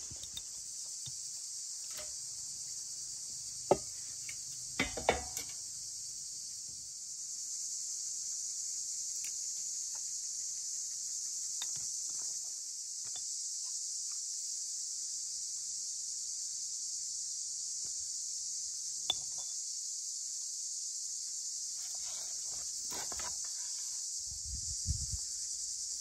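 Steady high-pitched insect chorus. A few sharp clicks and knocks sound over it, and some low thumps come near the end.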